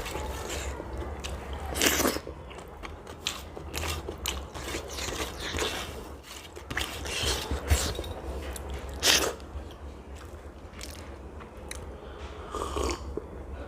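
Close-miked eating: chewing with crunchy bites and wet mouth clicks, over a steady low hum.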